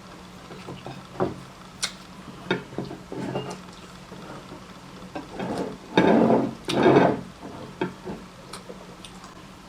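Eating sounds from people eating pounded yam and black soup: scattered small clicks and soft knocks of dishes and food being handled, with two louder, longer rustling sounds about six and seven seconds in.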